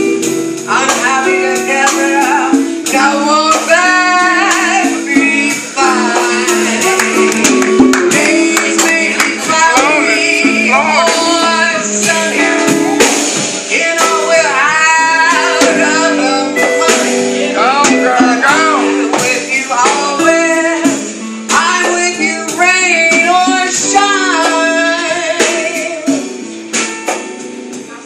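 Live jazz combo playing a ballad: a woman singing with vibrato over guitar, keyboard and drums.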